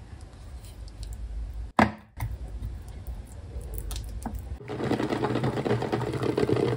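A metal spoon scraping and tapping batter into a floured metal muffin tin, with one sharp knock a little under two seconds in. About two-thirds of the way through, this gives way to a saucepan of water boiling hard, bubbling and crackling steadily around the eggs.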